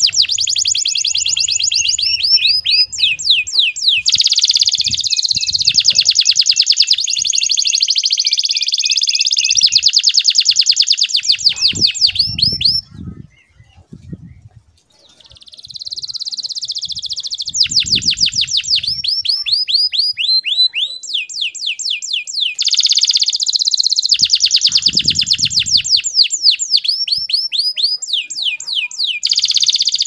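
Domestic canary singing long rolling trills of very fast repeated notes, broken by a pause of about three seconds near the middle before it resumes.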